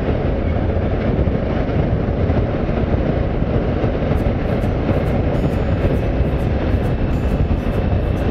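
Steady rush of wind and engine noise from a motorcycle riding at road speed. From about four seconds in, faint high ticks come in a regular rhythm of about three a second.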